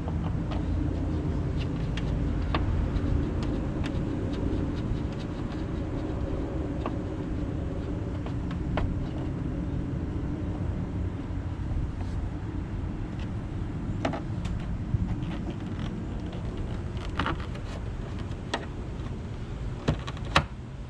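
Scattered light clicks and taps of a screwdriver and plastic trim fittings as a car door handle strap is being fitted, a few seconds apart, over a steady low rumble.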